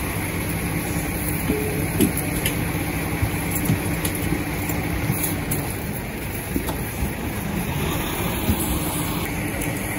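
Parked tour coach's diesel engine idling with a steady hum, with a few light knocks.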